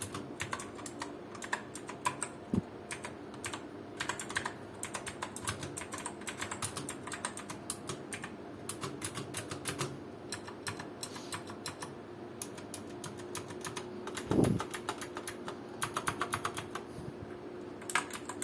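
Typing on an HP GK100F mechanical keyboard with clicky blue switches: a quick, uneven run of sharp key clicks, with one heavier thump about two-thirds of the way through.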